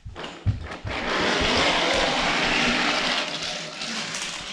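A toy vehicle running along a toy train track: a few knocks, then a steady whirring rumble from about a second in.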